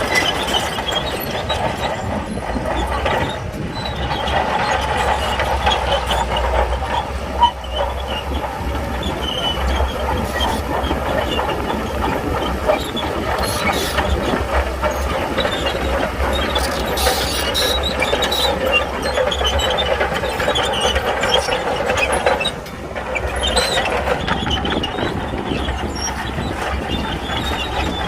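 Shantui bulldozer working: its diesel engine running and its steel tracks moving, a steady mechanical din with a sharp click about a quarter of the way in and a brief drop near the three-quarter mark.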